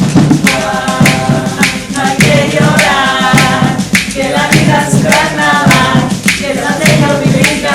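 Several voices singing together over a steady percussion beat struck on household objects; the singing comes in about half a second in.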